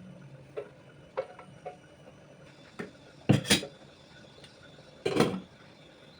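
Kitchen containers and dishes being handled and set down: a few light clicks and clinks, then two louder clattering knocks, the second near the end.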